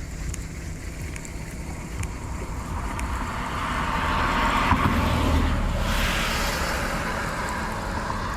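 A vehicle passing: a noise that swells to its peak about halfway through, then fades, over a low rumble.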